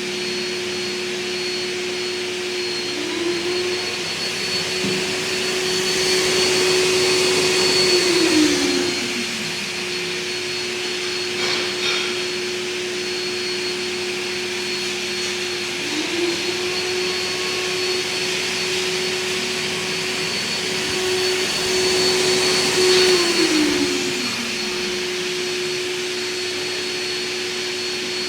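Vacuum cleaner motor running, switched off twice and winding down in a falling whine each time, then starting up again with a rising whine: repeated unexpected cut-outs that make it seem broken. A steady motor hum at the same pitch runs on underneath.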